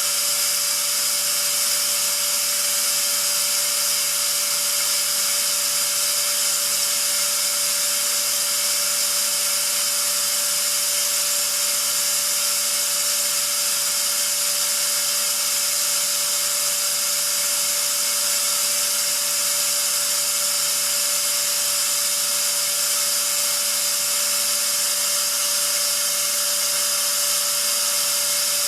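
Atlas Copco ZR 90 two-stage oil-free rotary screw air compressor running steadily: a constant whine over a loud high hiss.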